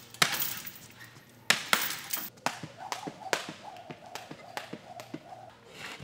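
Punches landing on a heavy punching bag: a few sharp thumps in the first two seconds. Then a jump rope slaps the floor mat in a quick, fairly even rhythm of about three light ticks a second.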